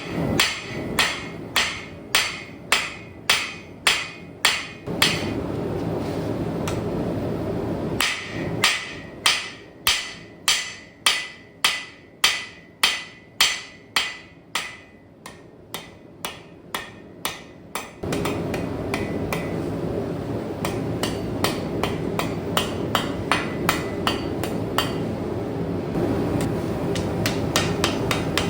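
Hand hammer forging a railroad spike, striking in steady runs of about two ringing blows a second, with a steady rushing noise between and under the runs and lighter, quicker strikes over it in the last third.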